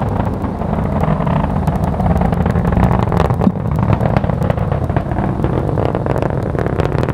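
Atlas V 511 rocket in powered ascent, its RD-180 main engine and solid rocket booster making a steady low rumble with crackling.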